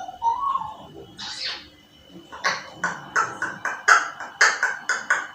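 African grey parrot mimicking sounds. It gives a short gliding whistle, then a breathy hiss, then from about halfway a rapid run of short sharp clicking calls, about four a second.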